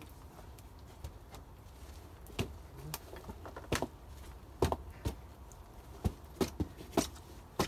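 A string of about ten sharp wooden knocks, starting about two seconds in and coming closer together toward the end: a wooden prop being knocked into place under a log bench.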